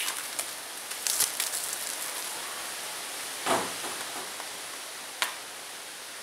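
Cardboard and plastic 4K UHD disc box set being handled and opened: scattered clicks and rustles over a steady hiss, with a louder knock about three and a half seconds in and a sharp click about five seconds in.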